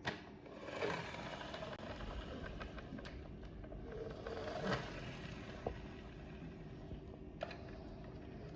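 Plastic toy helicopter being handled: scraping with a few sharp clicks, over a steady low hum.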